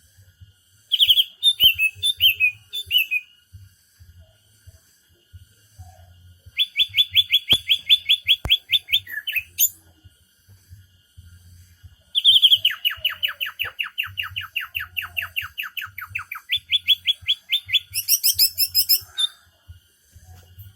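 A young trotol songbird practising its song: three bouts of fast, rapidly repeated high chirping notes with pauses between, the longest bout near the end dropping lower in pitch partway through.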